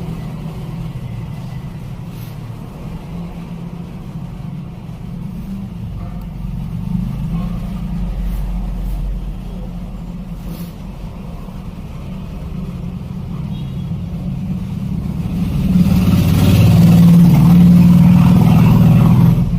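Steady low rumble, swelling louder over the last four seconds.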